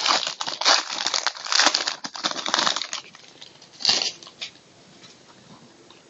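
Foil wrapper of a trading card pack being torn open and crinkled in the hands for about three seconds. A single sharp click follows about four seconds in.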